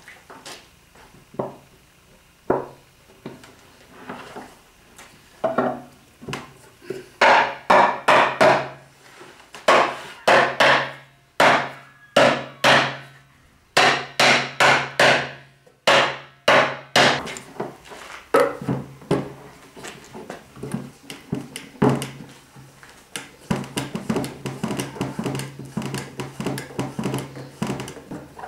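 A mallet knocks dowel-jointed chestnut boards together: a series of sharp wooden knocks, a few scattered at first, then loud clusters of repeated blows through the middle, with lighter, quicker tapping near the end.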